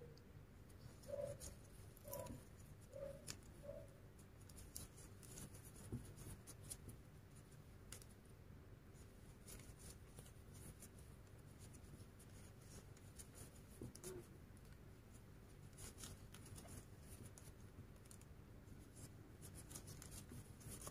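Faint scratching and small irregular clicks of a crochet hook pulling thick macramé cord through single-crochet stitches, very quiet overall.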